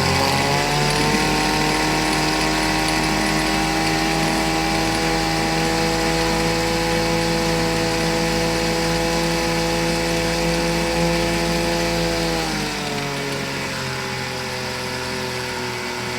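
Chrysler 4.4 hp two-stroke outboard motor running at high revs, held steady, then throttled back to a lower speed about thirteen seconds in.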